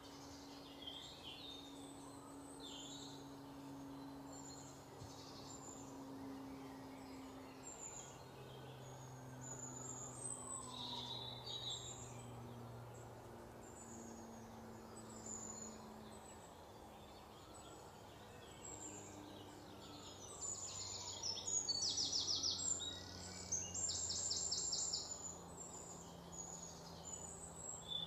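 Birds chirping and calling over a faint low hum. The loudest moments are two runs of rapid, buzzy trills about three quarters of the way through.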